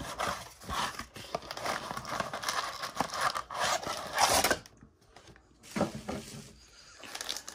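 Cardboard rustling and scraping as a trading-card blaster box is opened and its stack of wrapped card packs is slid out of the inner sleeve. It is loudest at about four seconds, then pauses briefly before one more short rustle.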